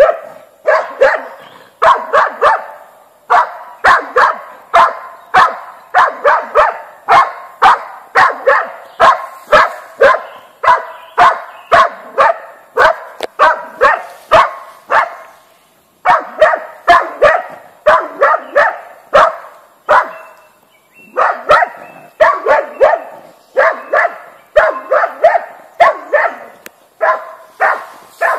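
A boar-hunting dog barking over and over at wild boar, baying them, about two sharp barks a second, with two short pauses past the middle.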